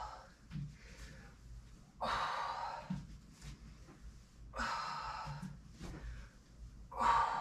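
A woman breathing hard during a core exercise: four loud, breathy puffs about every two and a half seconds, in time with her reps.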